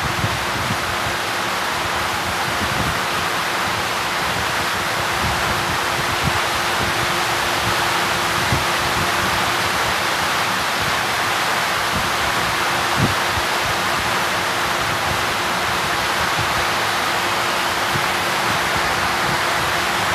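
Steady rushing hiss with a faint low hum running through it, and a few soft knocks.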